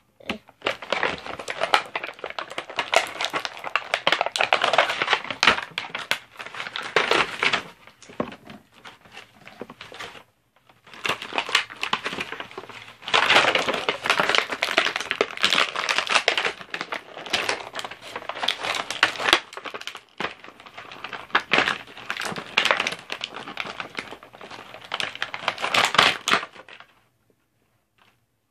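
Plastic and cardboard action-figure packaging crinkling and crackling as it is handled and opened by hand, in irregular bursts. There is a short pause about ten seconds in, and it stops shortly before the end.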